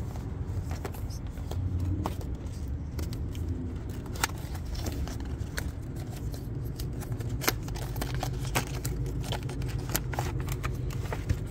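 A flashlight's packaging being handled and opened: a run of sharp clicks, scrapes and crinkles, over a steady low rumble.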